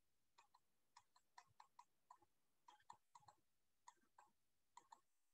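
Near silence with faint, irregular light clicks and taps of a stylus on a writing tablet as a word is handwritten.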